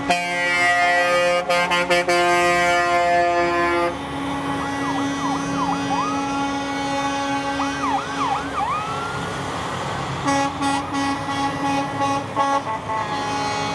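A semi-truck's multi-tone air horn blasts steadily for about four seconds. Quick rising-and-falling siren sweeps follow. Near the end come several short air-horn toots.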